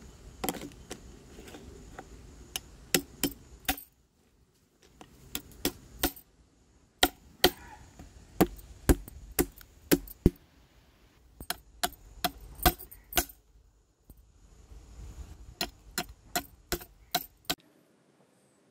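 Hard shells of river crabs clicking and knocking against each other and the vessel as the crabs are handled and cleaned: irregular clusters of sharp clicks, with a short pause about four seconds in.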